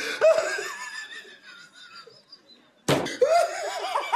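Mocking laughter bursts out loudly and fades over about two seconds. About three seconds in a sharp slap sounds, and a fresh bout of rapid, rhythmic laughter follows.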